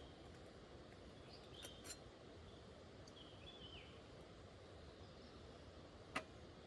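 Faint steady outdoor background hiss with a few short, high chirps and some light clicks; a single sharp click about six seconds in stands out as the loudest sound.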